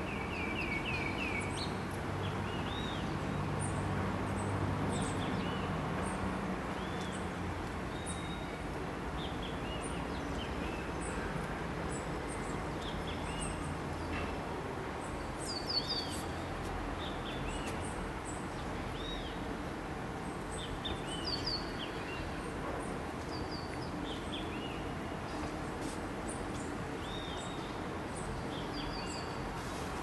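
Several birds chirping and calling with short, scattered notes, beginning with a quick run of about five notes, over steady background noise with a low rumble in the first few seconds.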